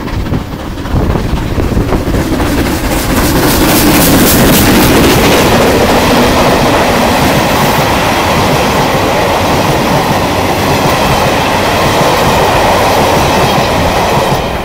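Steam locomotive No. 461 and its coaches passing close by on the line through the station. The sound builds over the first few seconds as the engine draws level, then holds as a long, loud run of carriage wheels rolling over the rails, and drops away near the end as the last coach goes by.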